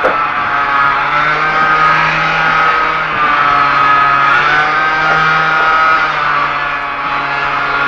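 Electric hair clippers buzzing steadily while shaving a man's head, the pitch wavering slightly as they work through the hair.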